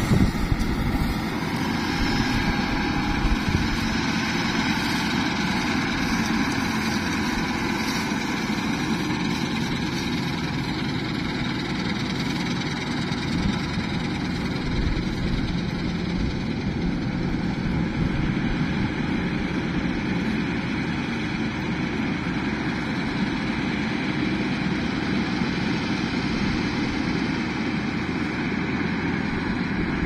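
New Holland 8070 combine harvester running as it cuts and threshes standing wheat, its engine and machinery giving a steady, even mechanical noise.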